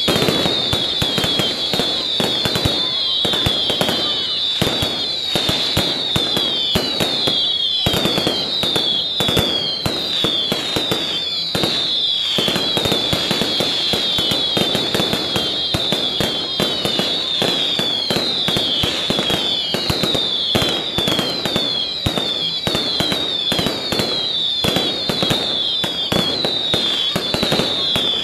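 Fireworks going off in a rapid, unbroken string of bangs and crackles. Many short whistles, each falling in pitch, overlap on top of the bangs throughout.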